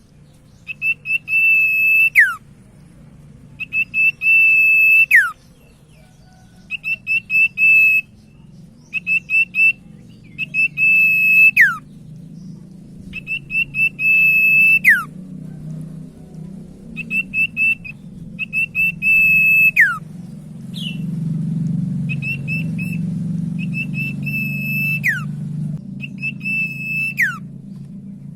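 Common iora (cipoh, known as sirtu) singing: a long, steady, high whistled note that ends in a sharp downward slur, alternating with quick runs of short whistles on the same pitch, phrase after phrase every two to three seconds. A low background hum grows louder in the second half.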